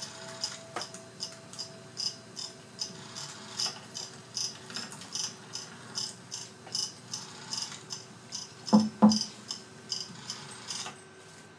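Steady mechanical ticking, about three sharp ticks a second, over two faint sustained tones, with two louder knocks about nine seconds in; the ticking stops just before the end.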